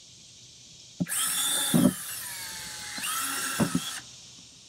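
Yellow DeWalt cordless drill boring vent holes through a plastic storage bin, in two short bursts about two seconds apart. The motor's whine winds down after the first burst.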